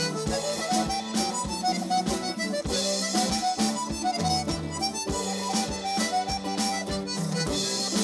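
Live Irish traditional dance tune: a button accordion carries a quick melody over an even drum beat.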